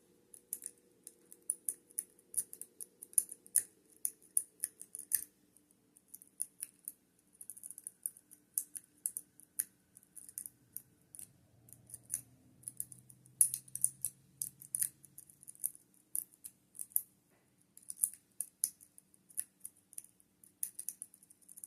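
Metal lock pick raking and zipping across the pins of a lock held under a tension wrench: quick, irregular metallic clicks and scrapes.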